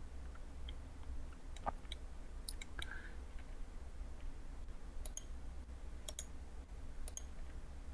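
Faint computer mouse clicks, a few scattered at uneven intervals, over a low steady hum.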